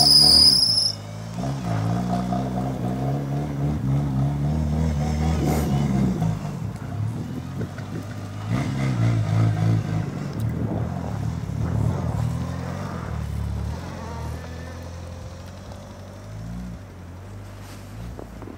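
Turbocharged 4G63 four-cylinder engine of a 1990 all-wheel-drive DSM revving up and down repeatedly, with a high whine in the first second, then gradually fading away near the end.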